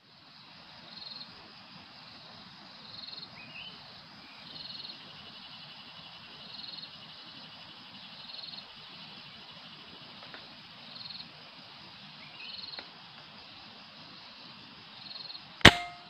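A single rifle shot near the end, sharp and loud with a short metallic ring after it. Before it, short high calls repeat about every two seconds over a faint steady background.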